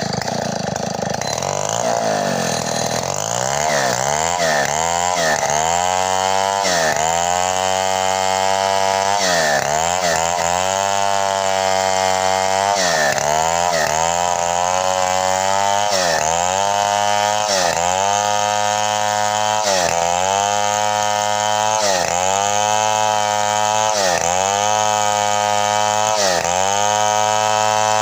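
Two-stroke chainsaw held at full throttle while ripping a bayur log lengthwise into planks. Its pitch dips under load and recovers over and over, about every one and a half to two seconds.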